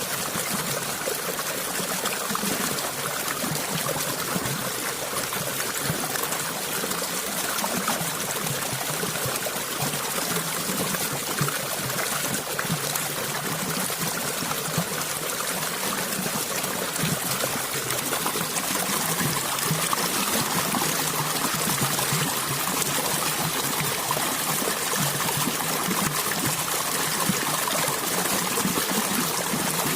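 Water flowing steadily in a small stream, trickling and splashing over stones without pause.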